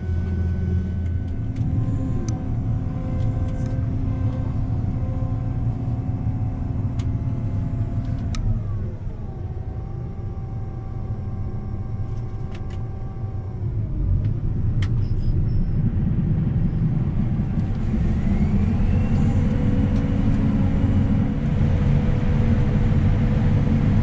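John Deere combine running with its corn head, heard from inside the cab: a steady machine drone with whining tones that fall in pitch about a third of the way through and climb again later. It gets louder in the second half as the machine works into the standing corn.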